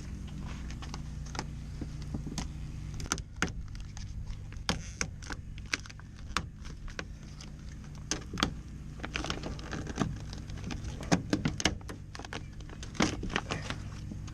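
Paper moisture barrier inside a Ford F-150 door being peeled back, giving irregular crinkles and sharp clicks, with a cluster of louder clicks near the end.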